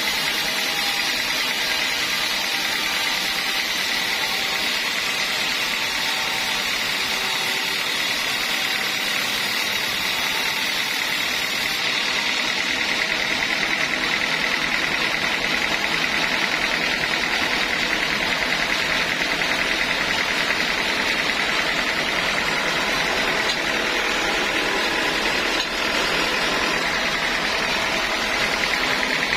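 Sawmill machinery running steadily: a continuous mechanical noise with a steady high whine.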